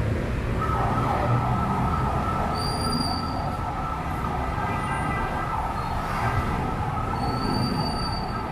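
Busy city street noise with a steady high-pitched whine that comes in about half a second in and holds.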